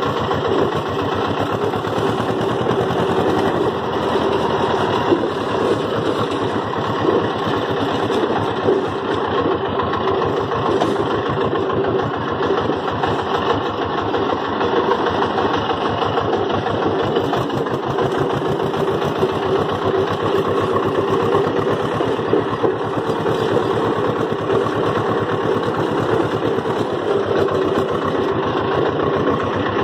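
HMT 2522 tractor's diesel engine running at a steady, even speed, heard close up from the driver's seat as the tractor drives along.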